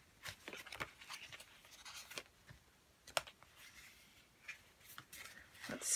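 Paper sticker sheets being flipped and handled: irregular soft rustles and crisp paper flicks, with one sharper snap about three seconds in.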